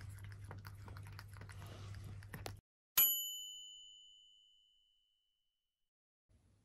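A cat lapping water from a washbasin, small wet licking clicks over a low steady hum, stops abruptly. About three seconds in, a single bright chime rings out and fades away over about two seconds.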